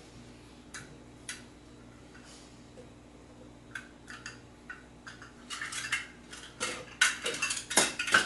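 Plastic measuring cups and kitchen containers being handled on a countertop. There are a few light clicks at first, then from about five seconds in a quicker, louder clatter of cups knocking together and things being set down. A faint steady hum runs underneath.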